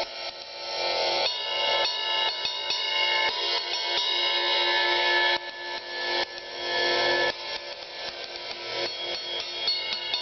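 Paiste ride cymbal played with a drumstick: a continuous run of strokes over a sustained wash, with harder accents about a second in and again between five and seven seconds in.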